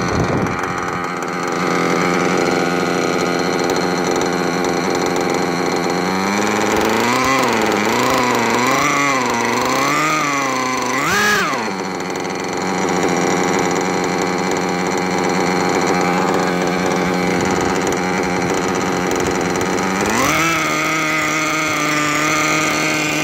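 Modded LRP .32 nitro RC engine running on the bench during break-in. It runs at a steady low speed, then about six seconds in the revs rise and fall in a series of gentle throttle blips for about five seconds before settling back. Near the end the revs climb and hold at a higher steady speed.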